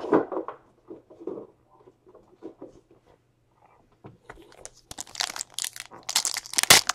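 A baseball card pack's wrapper being torn open and crinkled. The crackling starts about four seconds in and gets louder toward the end.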